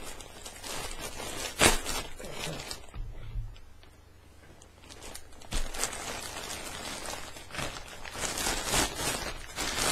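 Plastic mailing bag crinkling and rustling as it is handled and opened, with sharp crackles, the loudest about a second and a half in and more around the middle and near the end.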